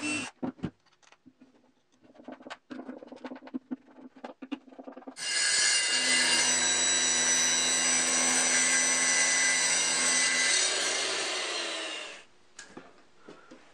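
Makita circular saw, mounted blade-up under the table top, running with no cut for about five seconds, then winding down to a stop with falling pitch. Before it starts, scattered clicks and knocks of handling.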